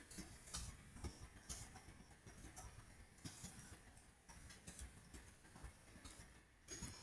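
Faint computer keyboard typing: irregular key clicks.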